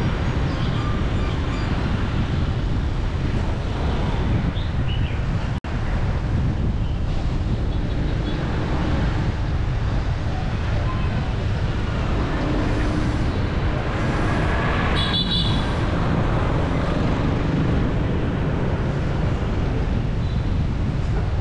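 Steady traffic and road noise heard from a moving vehicle on a city street, dominated by a low rumble. The sound drops out for an instant about five and a half seconds in, and a short high-pitched tone sounds about two-thirds of the way through.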